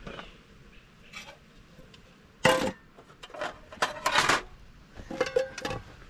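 Dishes and eating utensils clinking and clattering in a run of separate knocks, the loudest clatter about two and a half seconds in.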